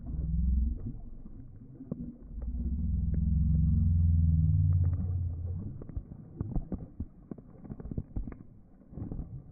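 A corgi splashing in shallow pool water as spray rains down around it. A low rumble swells about two seconds in and holds for about three seconds, and a run of short splashes and drips follows.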